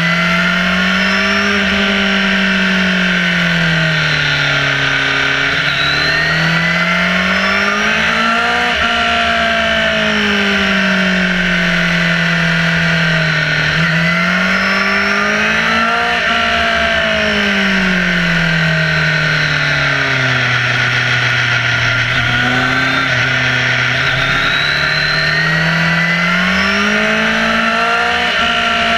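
Motorcycle engine under way, its pitch rising and falling again and again as the rider opens and closes the throttle through the bends, over a steady rush of wind.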